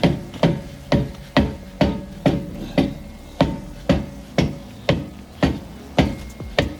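Hammer blows on a rusted, seized rear brake drum of a Gen 2 Toyota Prius, struck steadily about twice a second, each hit with a short metallic ring, to break the drum free of the hub.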